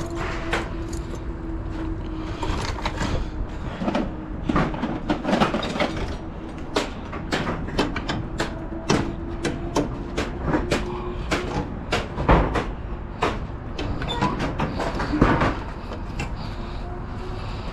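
Repeated sharp metallic clanks and rattles, many in quick succession, over a steady motor hum.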